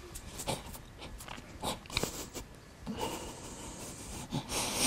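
A man crying quietly: sniffling and uneven breathing, with a longer breathy hiss of a sniff or exhale near the end.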